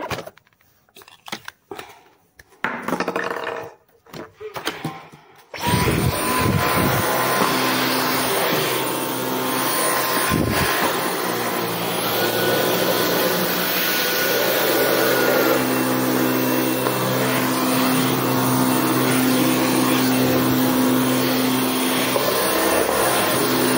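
Stick vacuum cleaner starting abruptly about six seconds in and running steadily with a whine. Before that there are only a few faint knocks.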